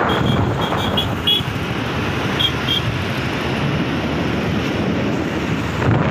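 Road and traffic noise from a moving vehicle, a steady rumble with wind on the microphone. A few short high-pitched beeps come in the first second or so and twice more about two and a half seconds in.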